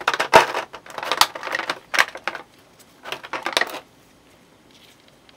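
Clear plastic blister tray of a Nendoroid figure crackling and clicking as the small sword parts are pried out of it by hand, in three bursts that stop a little before the end.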